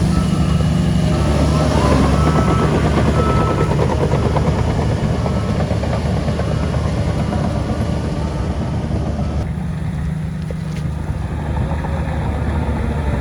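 Heavy diesel earthmoving machinery running steadily, a deep engine hum with dense rattling and clanking over it; the higher clatter drops away about two-thirds of the way through.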